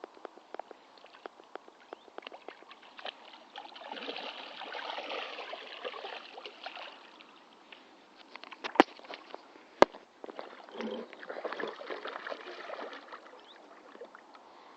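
Water splashing and sloshing in two stretches, with many small clicks and two sharp knocks about a second apart in the middle.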